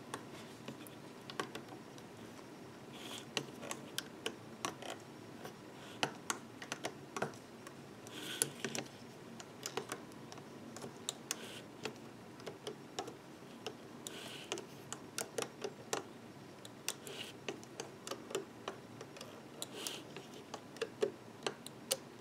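Faint, irregular light clicks and ticks of a metal loom hook knocking against the plastic pegs of a rubber-band loom as the bands are hooked and pulled over, with a short scratchy rustle now and then.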